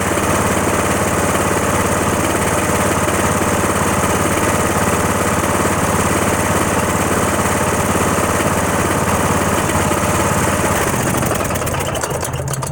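Cub Cadet lawn tractor engine, which the owner calls a bad motor, running loud and steady, then slowing and dying away near the end as it is shut off.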